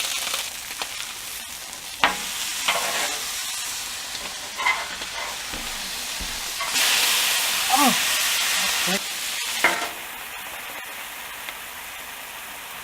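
Food frying in duck fat on a Blackstone flat-top griddle: a steady sizzle with a few sharp taps and clicks. The sizzle swells louder for about three seconds past the middle, then settles lower near the end.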